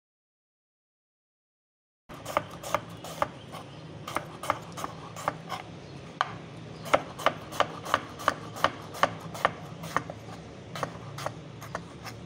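Chef's knife slicing a round gourd (tinda) on a wooden cutting board: a quick run of sharp knocks as the blade meets the board, about three a second, beginning after about two seconds of dead silence.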